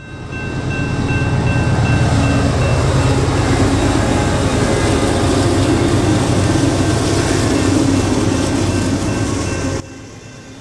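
Iron ore train's diesel-electric locomotives passing close by: a loud, steady low rumble with a thin high tone over it, cutting off suddenly near the end.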